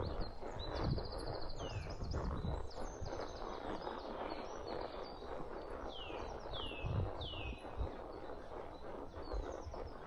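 Birds singing: repeated quick downward-sliding chirps and high trills, over the dull, irregular thuds of a walking horse's hooves on a forest trail.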